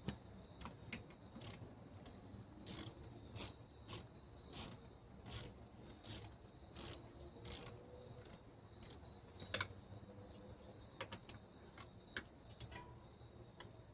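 Faint, sharp mechanical clicks, roughly one to two a second, over light rubbing, from hand tool work on a mountain bike.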